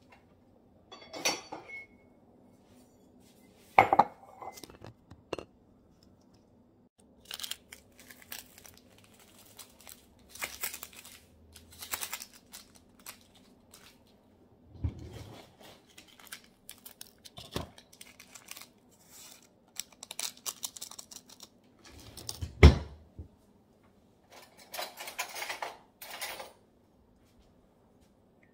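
Kitchen clatter of instant coffee being made: dishes and cutlery clinking and knocking, with stretches of rustling and handling. Two sharp knocks stand out, one about four seconds in and a louder one about three-quarters of the way through, over a faint steady hum.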